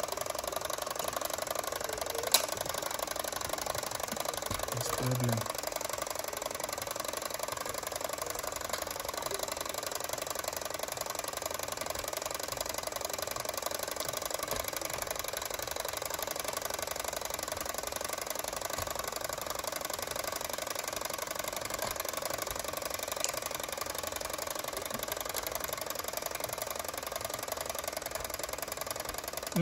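Wind-up clockwork timer of a shape-matching board game ticking rapidly and steadily as it runs down, with one sharp click about two seconds in.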